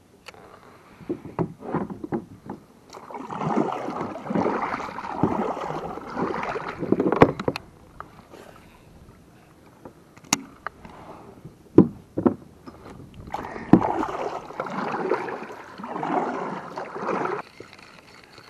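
Kayak paddle strokes splashing and swishing through the water in two bouts, with a few sharp knocks in between.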